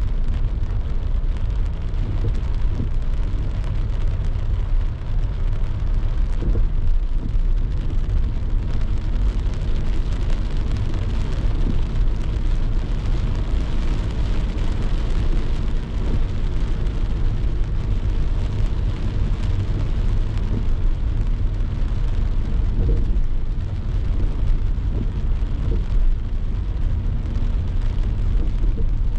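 A car driving in the rain: a steady low road rumble with an even hiss of rain and wet tyres.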